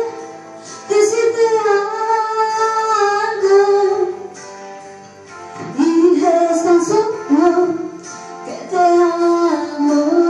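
A woman singing a Spanish-language song into a handheld microphone over instrumental accompaniment, in three phrases with short breaks between them.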